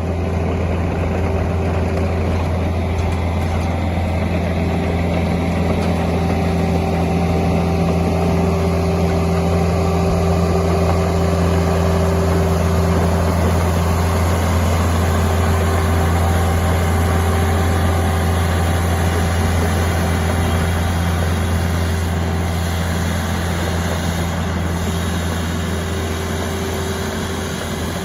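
Diesel engine of a heavy construction machine running steadily with a constant low drone, easing off slightly near the end.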